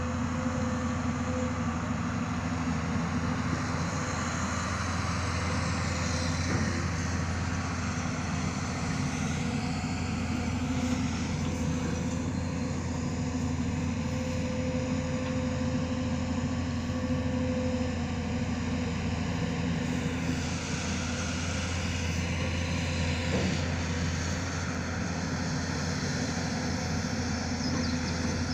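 Hyundai long-reach excavator's diesel engine running at a steady pitch, a low hum with a steady higher tone over it.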